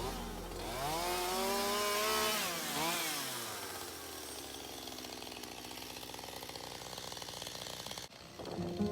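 Chainsaw revving up and back down twice, then running steadily at speed until it cuts off sharply about eight seconds in.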